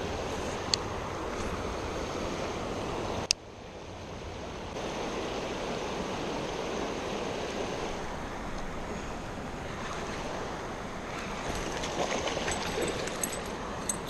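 Creek water running steadily over a rocky shallow. About 3 seconds in there is a sharp click, and near the end a run of light ticks and splashes as a small hooked fish is reeled to the bank.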